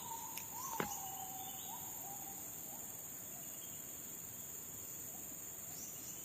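Steady high-pitched insect chorus, crickets or similar, droning without a break. In the first two seconds a run of short rising calls sounds over it, fading away, with a single sharp click just under a second in.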